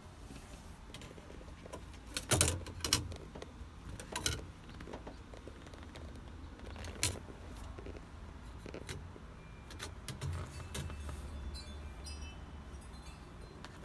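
A few sharp clicks and light metallic clinks, with a brief high jingle near the end, over a low steady hum.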